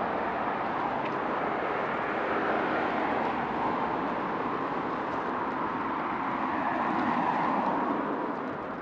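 Steady road-traffic noise, the hiss of car tyres on the road, swelling about seven seconds in and then fading away near the end.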